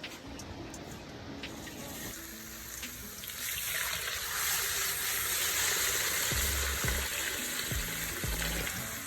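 Fish sizzling as it fries in hot oil, a steady hiss that grows louder about three seconds in, with a few low knocks near the end.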